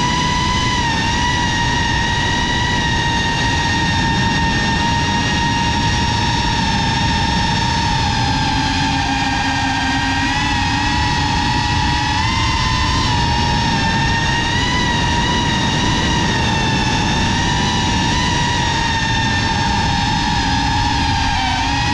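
A GEPRC CineLog35 FPV drone's brushless motors and ducted 3.5-inch propellers whine steadily in flight, heard from the drone's own camera. The whine's pitch wavers a little up and down with the throttle over a low rushing noise.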